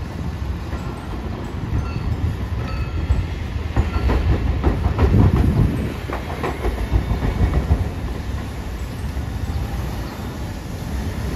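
A Hiroden Green Mover LEX low-floor tram running through the junction, its wheels rumbling and clacking over the rails of the diamond crossing. There is a run of knocks from about four to eight seconds in, loudest around five seconds.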